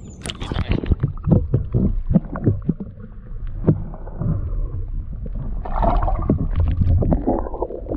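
Water splashing and knocking against the side of a plastic kayak as a bass is lowered into the water and released, with irregular splashes and knocks. Later the microphone goes underwater and the sound turns muffled and gurgling.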